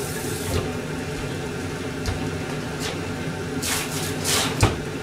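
Steady low hum of a kitchen, with a few light knocks and clatters and one sharp click about four and a half seconds in, the loudest sound.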